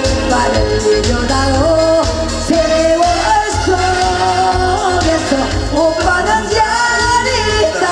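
A woman singing a Korean trot song live into a microphone over amplified backing music with a steady beat, her voice holding long notes and sliding between pitches.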